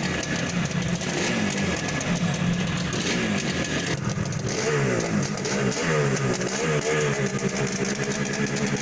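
Yamaha RD350's two-stroke parallel-twin engine running. From about halfway through the throttle is blipped several times, the revs rising and falling.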